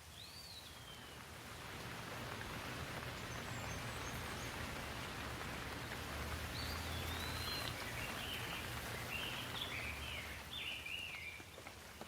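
Rain falling on leaves, a dense hiss that swells about two seconds in and eases off near the end. A bird chirps once at the start and gives a run of chirps in the second half.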